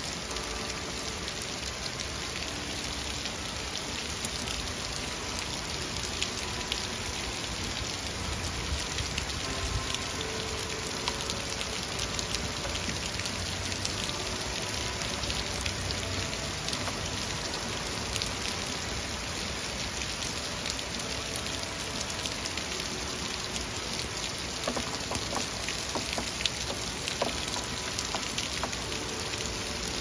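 Heavy rain falling steadily on the street, grass and parked cars, with sharp drop hits close by. Faint church bell chime notes sound at times beneath the rain.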